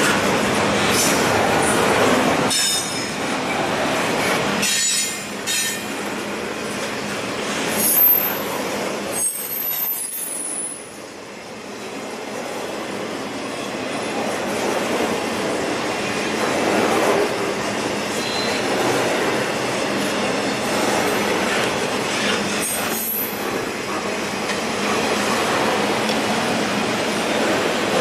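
Double-stack intermodal container cars rolling past at track speed: a steady rumble of wheels on rail with occasional clacks over joints. Brief high-pitched wheel squeals come about 8 and 10 seconds in and again near the end.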